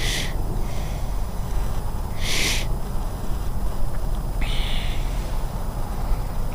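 A flock of flying birds, taken for ducks, calling: three short, harsh, high-pitched calls about two seconds apart, over a steady low rumble of wind on the microphone.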